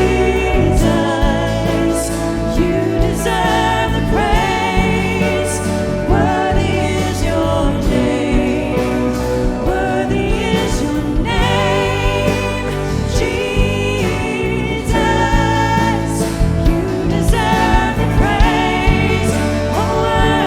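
Christian worship music: voices singing over a full, steady instrumental accompaniment with a strong bass.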